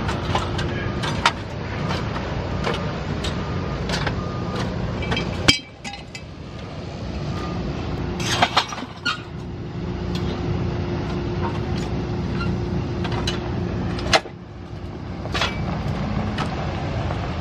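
A vehicle or machine engine running with a steady low rumble and faint hum. It drops away sharply twice and builds back up, with scattered sharp clicks and metal knocks over it.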